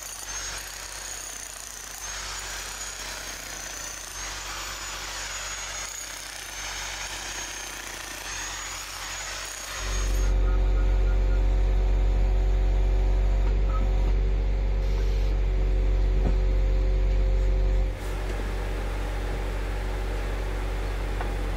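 A corded electric demolition hammer chipping old concrete out around a manhole frame, with a steady high motor whine. About ten seconds in this gives way to a truck engine running with a steady deep drone, which drops a little in level near the end.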